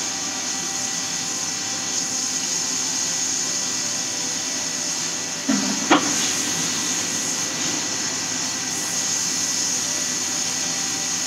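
Hot air rework gun blowing steadily onto a motherboard's shorted MOSFETs with its heat turned up, heating them to desolder them, a steady airy hiss. A short knock about six seconds in.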